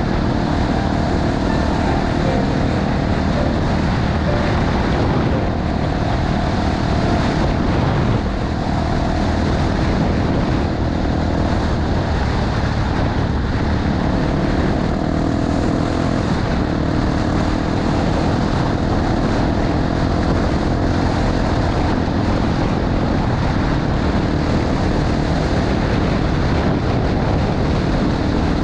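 Honda XR250 Tornado's single-cylinder four-stroke engine running at a steady cruise on a gravel road, with heavy wind noise on the microphone over it.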